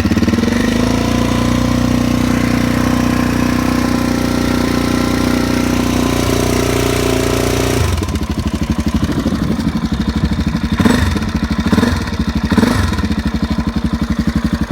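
2002 Suzuki DR-Z400S's freshly rebuilt single-cylinder four-stroke engine, just cold-started on the choke, running at a steady fast idle. About eight seconds in it drops to a slower, more uneven idle, with three short throttle blips after that.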